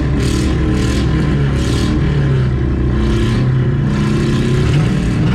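Demolition derby car engines running and revving unevenly while the cars wait at the start line.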